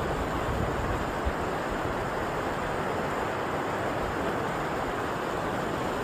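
River water rushing steadily over a shallow, rocky riffle.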